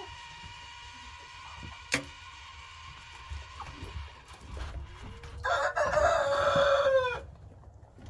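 A rooster crows once, about five and a half seconds in, a loud call of nearly two seconds that drops in pitch at the end. Before it, a faint steady whistle of air leaking past the chicken waterer's loosely screwed-down lid, with a single sharp click about two seconds in.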